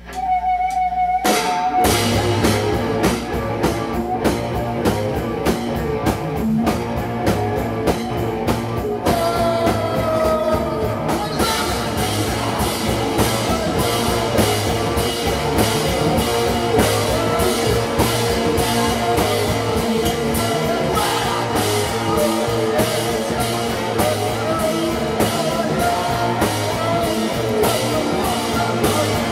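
A live rock band with drum kit and electric guitars starting a song: a brief held tone, then the full band comes in loud about a second and a half in and plays on with steady, dense drumming.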